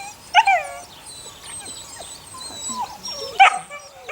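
Eight-week-old puppies yelping and whimpering: a string of short high-pitched cries, with two loud yelps about half a second in and near the end.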